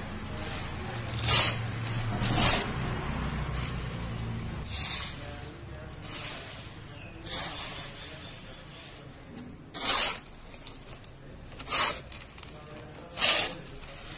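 Handfuls of dry, dusty sand and soil crumbled and poured from the hands onto a pile. Each drop is a short hiss, about seven of them at irregular spacing. A low steady hum runs under the first few seconds.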